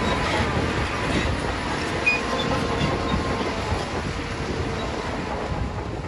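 Shantui crawler bulldozer working, its diesel engine running under a dense, steady rattle of steel tracks, easing slightly in loudness toward the end.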